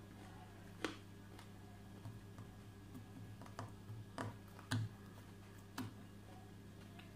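Metal fork clicking against a glass bowl as salad is speared, about eight sharp, irregular clicks, over a steady low hum.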